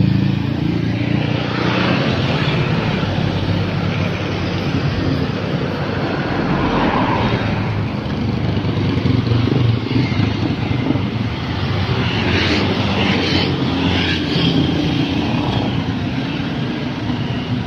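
Passing road traffic: motorbike engines and small trucks going by one after another, a steady mix of engine noise and tyres on asphalt.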